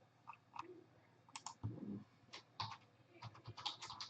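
Faint, irregular clicking of computer keyboard keys being typed, the presses coming thicker near the end, with one soft low thump about two seconds in.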